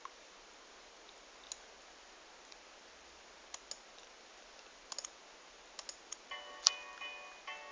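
Faint, scattered clicks of taps on a tablet. About six seconds in, music starts playing from the tablet in short pitched notes, with one loud click among them.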